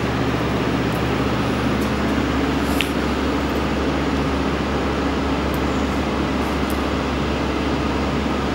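A steady low mechanical hum with a constant drone underneath, and a few faint clicks scattered through it.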